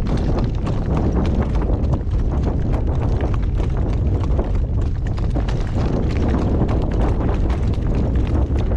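A newly shod horse's hooves clip-clopping as it is ridden, a quick, continuous run of strikes, over a steady low rumble.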